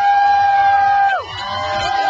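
Street crowd cheering and whooping: several long, high 'woo' calls held and then falling away in pitch, the loudest dropping off a little past a second in.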